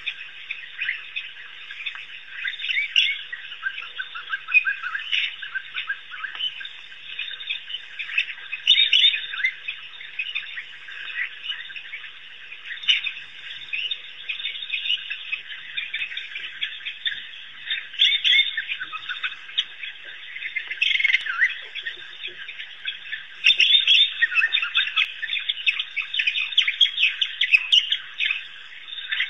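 A pack of African wild dogs twittering: a continuous chatter of many overlapping high-pitched chirps and squeaks, with louder flurries now and then.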